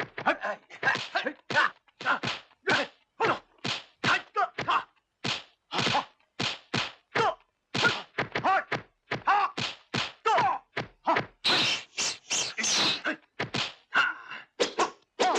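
A rapid string of classic kung-fu movie fight sound effects: sharp punch and kick impacts, about two to three a second, some of them carrying short pitched cries.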